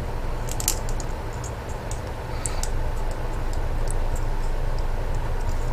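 Light clicks and taps of small plastic model-kit parts being handled and snapped together, scattered irregularly over a steady low hum.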